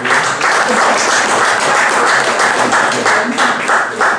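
Audience applauding, dense and steady, dying away at the very end.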